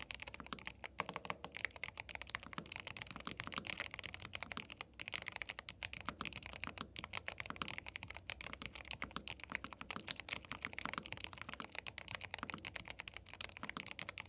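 Fast, continuous typing on a YUNZII B75 Pro gasket-mount mechanical keyboard with Milk linear switches: a dense stream of key clacks with no pauses.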